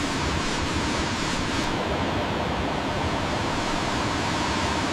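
Steady rush of a waterfall, an even, unbroken noise.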